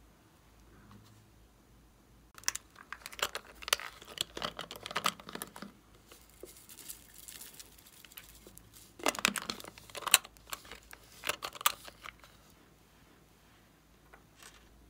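Crinkly crackling of a soft plastic Hello Kitty-shaped container being squeezed and shaken while glitter and sprinkles pour out onto slime. It comes in two spells of dense clicks, the second starting a little past halfway.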